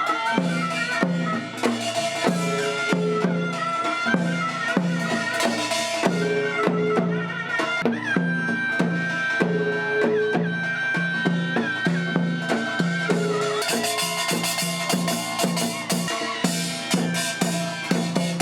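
Korean traditional music: drums keep a steady repeating rhythm while a high melody instrument holds and bends long notes above them, with brighter metallic clatter joining in the second half.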